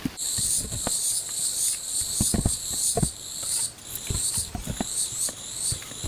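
Insects chirping in a steady, high-pitched pulsing chorus of about two chirps a second, starting suddenly just after the beginning, with scattered low knocks and thuds underneath.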